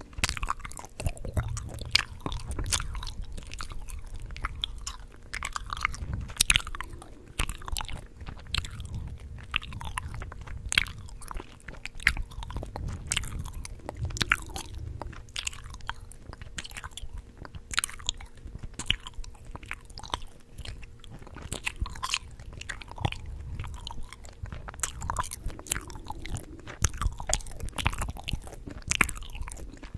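Chewing gum close to the microphone: quick, irregular wet smacks and clicks of the mouth, several a second.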